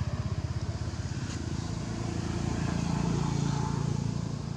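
A motor vehicle's engine running: a low, rapidly throbbing hum that grows steadier and louder about three seconds in, then eases off slightly.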